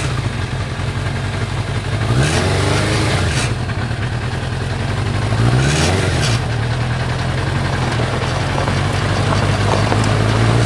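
Suzuki GSX-R600 inline-four motorcycle engine in a homebuilt off-road buggy, idling with two short blips of the throttle, about two seconds in and again near six seconds, then revving a little as the buggy moves off near the end.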